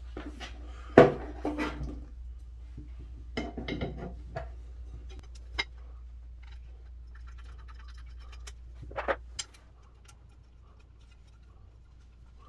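Flat black metal stand legs and a large hex bolt handled on a desk: scattered clicks and knocks of metal on metal and on the tabletop, the sharpest about a second in. Light scraping as the bolt is turned in by hand.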